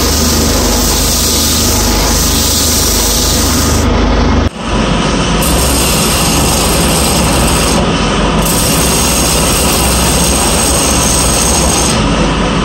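Wood lathe motor running while sandpaper is held against the spinning wooden workpiece. After a brief break about four and a half seconds in, a long turning tool cuts into the end grain of the spinning wood with a steady scraping.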